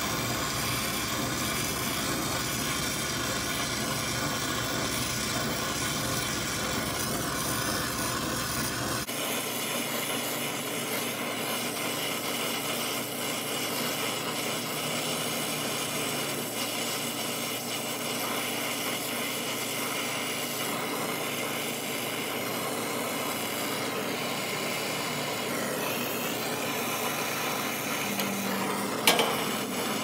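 Oxy-acetylene brazing torch flame hissing steadily on copper refrigerant pipe. A low rumble underneath cuts off suddenly about a third of the way in, and there is a sharp click near the end.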